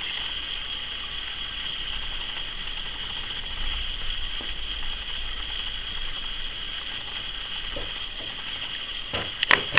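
Steady background hiss with a low hum underneath, and a few sharp knocks near the end.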